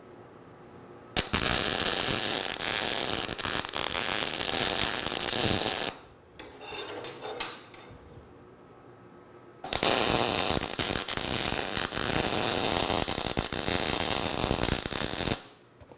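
Electric arc welding a steel axle to a caster wheel's bracket plate: the arc crackles steadily in two runs of about five seconds each. The first run starts about a second in and the second follows a pause of about four seconds, which holds fainter handling sounds.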